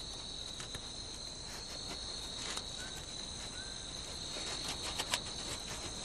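Night insects calling in a steady, high-pitched chorus, with scattered faint clicks and crackles.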